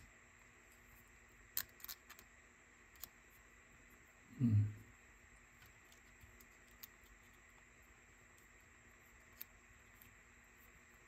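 Sparse light clicks and taps of small plastic and metal parts of a Sony Walkman WM-EX999 cassette mechanism being handled during disassembly, with one short low sound about four and a half seconds in.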